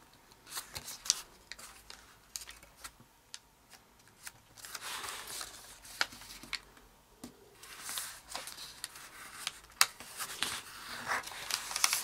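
A square of kami origami paper rustling and crinkling as hands fold it, run the crease and unfold it again, with many small sharp crackles from the paper.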